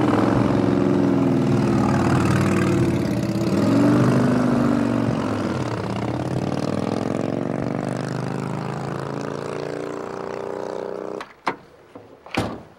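A motor vehicle engine driving along, its pitch rising and falling, then easing down until it cuts off about eleven seconds in. A couple of sharp knocks follow near the end.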